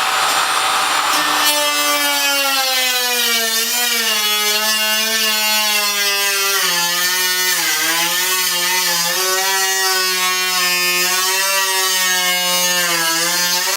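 A brief hiss, then a power tool starting about a second and a half in and running continuously, its whine wavering and dipping in pitch as it loads up, as when cutting the car's fender sheet metal for a wide-body kit.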